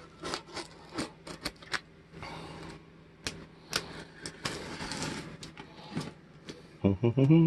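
Razor-blade box cutter slicing and scraping through thick packing tape on a cardboard box: a run of sharp clicks and scratches, with longer rasping cuts about two and five seconds in.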